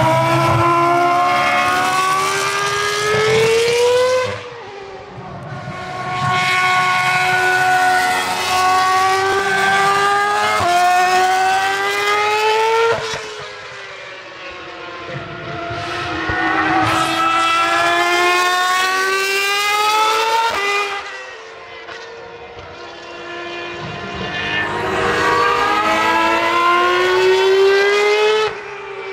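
Ferrari racing cars, a former Formula 1 car and a sports prototype among them, passing one after another at full throttle. Their high-revving engines climb steadily in pitch as they accelerate through each pass, with sudden breaks between passes.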